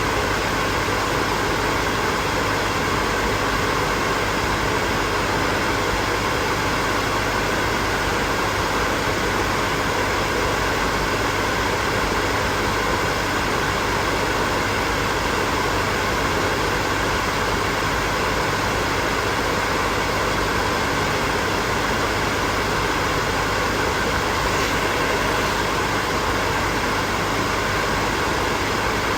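Electric hair dryer running steadily, a continuous blowing whoosh with a faint steady hum.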